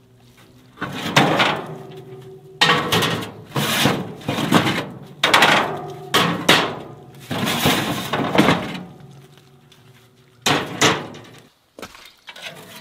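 Metal grill cooking grates being lifted out and set down, clanking and scraping against the grill body in a run of ringing knocks, with two sharper knocks and a few lighter ones near the end.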